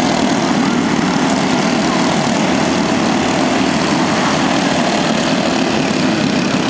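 Several small four-stroke racing kart engines running together at speed, a steady loud drone with pitches that slide up and down as the karts accelerate and lift.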